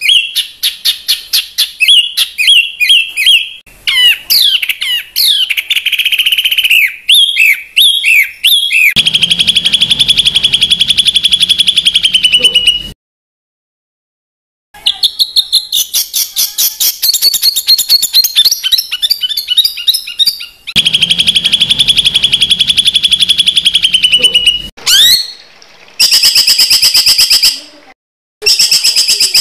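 Edited songbird tutor recording of harsh song: rapid trains of sharp repeated notes and chirping trills. It stops abruptly for a silent pause a little before halfway, then resumes in cut-together bursts.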